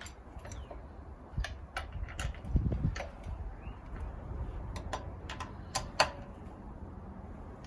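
Hand wrench being worked on the wheel bolts of a refitted rear wheel, scattered metallic clicks and knocks as the bolts are checked for tightness, with a low rumble about two and a half seconds in.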